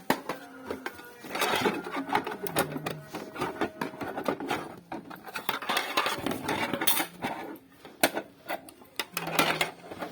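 Rustling, scraping and sharp clicks from a parcel being handled and unpacked by hand.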